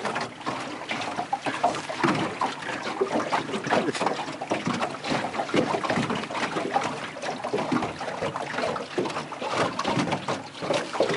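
Close, irregular rustling and crackling of a camouflage jacket and cedar branches rubbing and brushing against the camera, with many small clicks and no steady tone.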